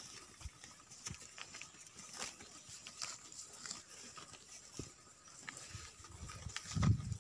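Gir cattle moving about: scattered light knocks and clicks, with a louder low rumble near the end.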